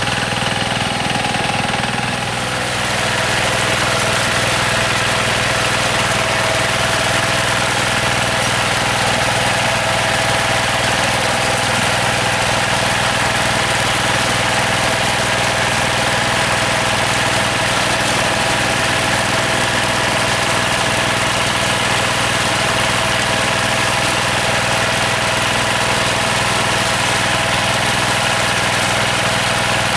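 Yanmar TF105 single-cylinder diesel engine of a two-wheel hand tractor running steadily. Its sound shifts a little about two seconds in, then holds even.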